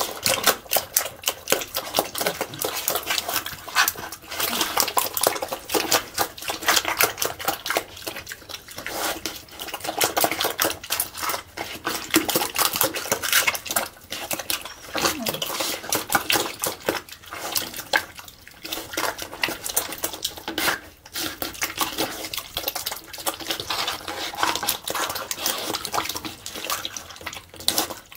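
A young pig eating wet slop from a trough: continuous slurping and smacking with many quick wet clicks of chomping jaws, and crunching of eggshells in the slop.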